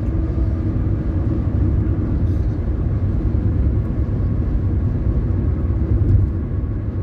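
Steady low rumble of a car's road and engine noise, heard from inside the cabin while driving at highway speed.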